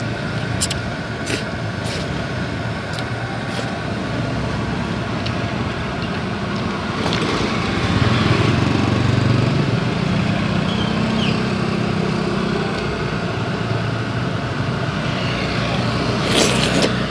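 Steady street traffic noise, with a vehicle engine running louder for several seconds around the middle. A few light clicks come in the first few seconds.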